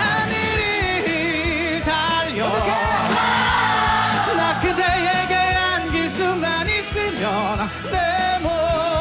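Male vocalists singing a Korean pop-rock chorus together over a live band with a steady beat.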